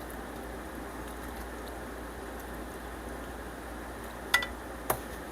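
Steady faint hiss of a cooking pan, with two sharp clicks of a utensil against the pan about half a second apart near the end, the first ringing briefly.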